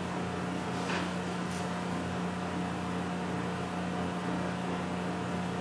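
Steady low hum with an even hiss underneath: background room noise during a pause in speech.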